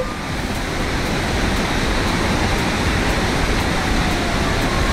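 Hot-spring waterfall pouring, a steady loud rush of falling water.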